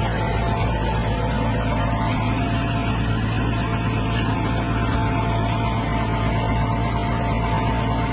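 Massey Ferguson 399 tractor's diesel engine running steadily under load while pulling a four-furrow plough through the soil, with a steady high whine over the drone.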